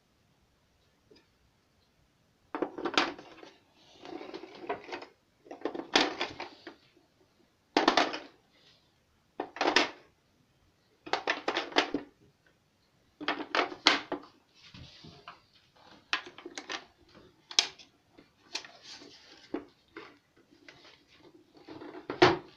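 Plastic casing of a Yamaha DD-6 electronic drum pad being handled and turned over: irregular knocks, clatters and rustling in bursts, with a louder knock near the end as it is set down on the table.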